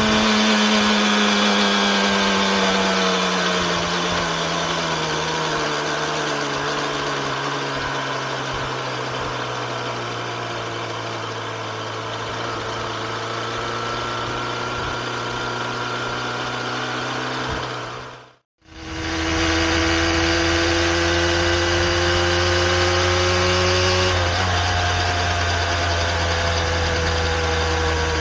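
Yamaha RZ250R's two-stroke parallel-twin engine idling through its overhauled expansion chambers and silencers; the revs sink slowly over the first several seconds and then hold steady. About two-thirds of the way in the sound cuts out for an instant, then the engine carries on at a steady, lower idle.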